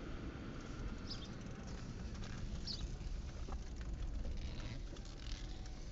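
Car driving, its engine and road noise a steady low rumble heard from inside the cabin, with a couple of short, high squeaks about a second and two and a half seconds in.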